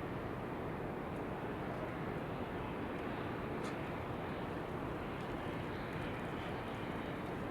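Steady, even white noise mixed with wind rumble, with one faint, brief high chirp about halfway through.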